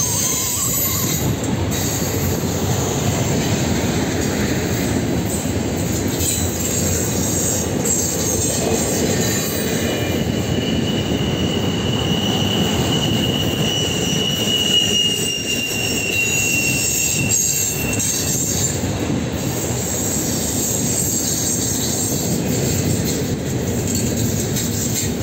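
Intermodal freight cars loaded with containers and trailers rolling past on curved track, their wheels making a steady noise on the rails. A thin, high wheel squeal holds from about ten seconds in until about eighteen seconds.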